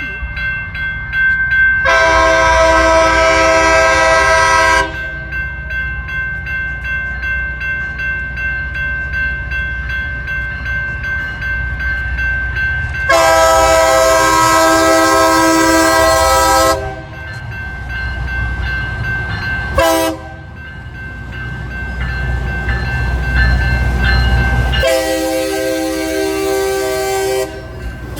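Loram rail grinder train passing, its horn sounding the long-long-short-long grade-crossing signal over the steady low rumble of its diesel engines and wheels.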